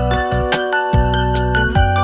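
Background music: sustained keyboard notes over a steady beat with regular percussion hits.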